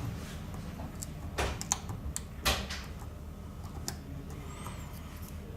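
A few short knocks and clicks, the loudest about two and a half seconds in, over a low steady hum.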